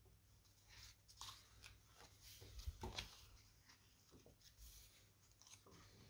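Pages of a hardback book being turned by hand: faint paper rustles and soft flicks several times over, loudest about two and a half to three seconds in.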